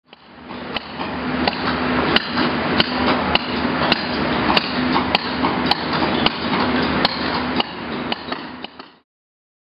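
Several caulking mallets striking caulking irons, driving rope into the seams of a wooden hull. There are many overlapping sharp taps, with the loudest coming about every half-second. The sound fades in at the start and stops abruptly near the end.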